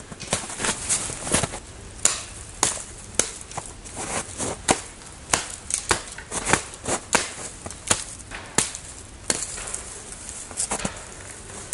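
Hatchet chopping at the base of a thin dead standing tree: a long run of sharp wooden strikes, a little under two a second and somewhat uneven in pace.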